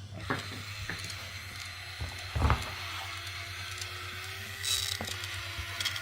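Small taps and scrapes of plastic digging tools working through kinetic sand, with one louder low thump about two and a half seconds in, over a steady low hum.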